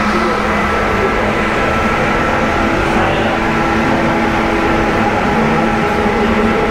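Steady, loud machine hum with a few fixed tones that hold unchanged throughout.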